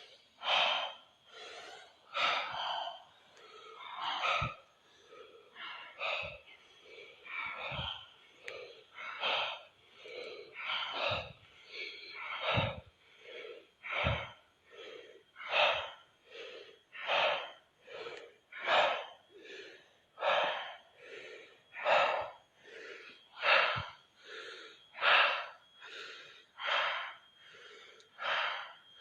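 Deep, forceful breathing in a steady rhythm, about one breath every one and a half seconds: the rapid deep-breathing round of a breathwork exercise.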